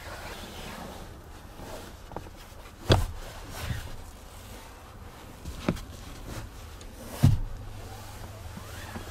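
Thumps and clunks of a Lada Granta Liftback's rear seat being folded and handled: a sharp knock about three seconds in, smaller ones near four and six seconds, and another hard knock about seven seconds in.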